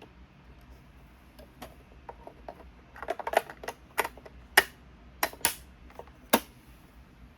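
Sharp clicks and taps of computer keys being pressed: a quick cluster about three seconds in, then single louder clicks every half second to a second, over a faint low hum.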